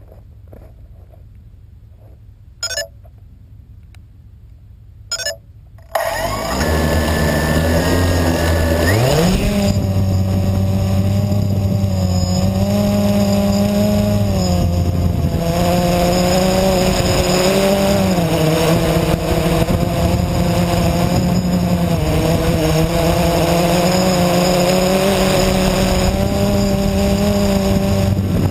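Blade 350 QX quadcopter's electric motors and propellers: after two brief loud bursts, the motors spin up about six seconds in, rise sharply in pitch as it lifts off around nine seconds, then hold a loud, steady multi-tone hum whose pitch wavers as it flies.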